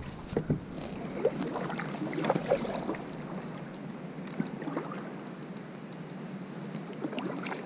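Water lapping around a small fishing boat, with scattered light knocks and clicks from the hull and gear being handled.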